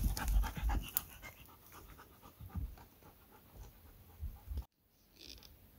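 A dog panting quickly close to the microphone, mixed with low thumps of footsteps on the forest floor. The sound cuts off abruptly about four and a half seconds in.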